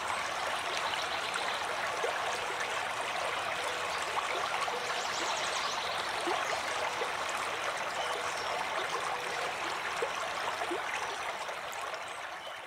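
Steady rush of flowing water, an even hiss that fades out near the end.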